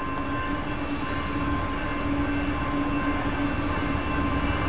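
Southbound BNSF manifest freight train approaching the crossing, its rumble growing steadily louder. A steady droning tone rises and dips over it.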